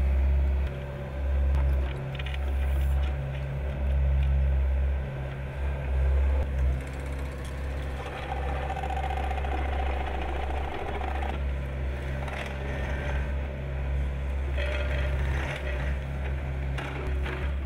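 Mini excavator's diesel engine running steadily, its loudness rising and falling as the machine works. A steady whine comes in for about three seconds in the middle, and there are scattered clanks and scrapes of the attachment on the ground.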